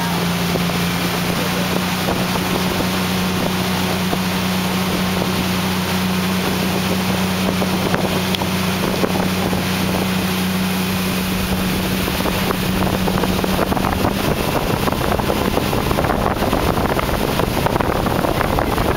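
Motorboat running at speed: a steady engine drone under the rush of wind and churning water. About two-thirds of the way through, the engine tone grows less distinct and the wind and water noise rises a little.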